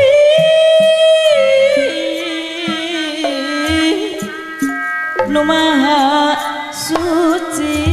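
Live Sundanese jaipongan music: a female singer (sinden) holds long, wavering, ornamented notes over the band's accompaniment, with a few short sharp percussion strikes.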